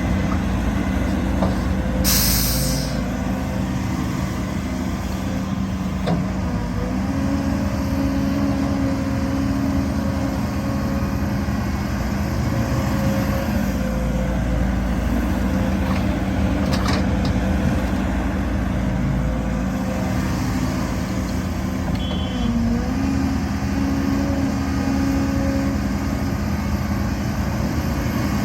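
Heavy diesel earthmoving machinery running steadily, its engine pitch shifting slightly a few times. A short hiss of released air comes about two seconds in.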